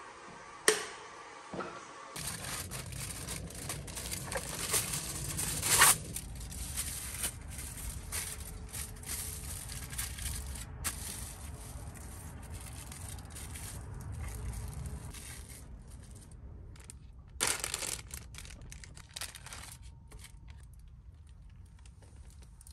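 Packaging being torn and crinkled by hand, with scattered handling clicks, over a steady low rumble; the loudest rips come about six seconds in and again a little past halfway.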